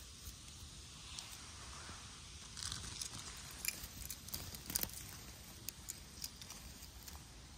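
Grass and moss rustling as a gloved hand reaches in to pick chanterelle mushrooms, with a few sharp little snaps and clicks about halfway through.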